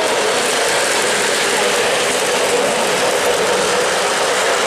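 O-gauge model train running close by on three-rail track: a steady mechanical whir of motor and gears with the rolling of wheels on the rails.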